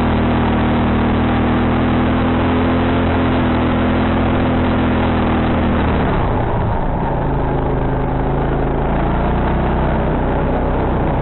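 ATV engine running under load at steady revs, then dropping to lower revs about six seconds in and running on steadily, with a constant rushing noise underneath.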